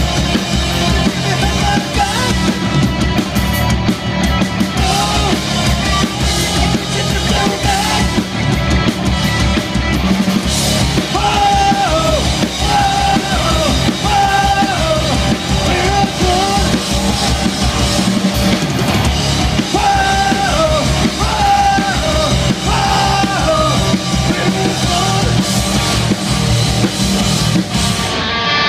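Live rock band playing loud: electric guitars, bass guitar and a drum kit, with a melody line coming in over it about eleven seconds in.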